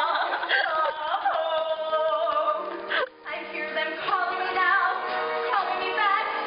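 A musical-theatre number: singing with instrumental accompaniment. The voices break off briefly about three seconds in, then go on.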